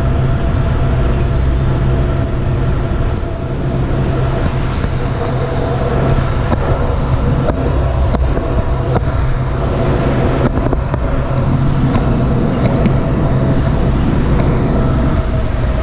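Automated airport people-mover tram running along its tunnel guideway: a steady low rumble with a constant whine from the drive, and a few sharp clicks and knocks from the running gear in the second half.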